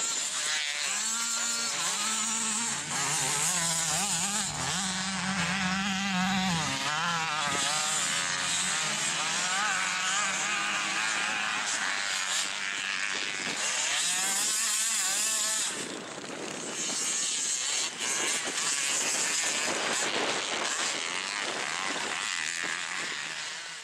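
Motocross dirt bike engines revving hard and rising and falling in pitch as the bikes ride past on the track, with a high hissing noise throughout.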